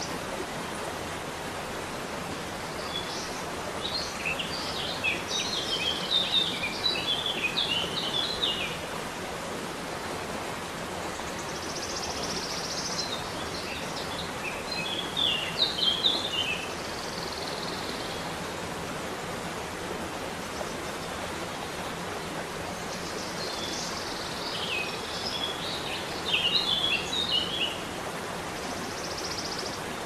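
Steady rush of a waterfall, with a songbird singing three bursts of rapid high chirping phrases over it.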